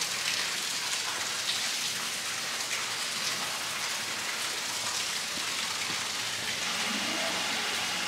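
Steady patter of falling water: an even hiss with faint ticks of drops, the sound of rain.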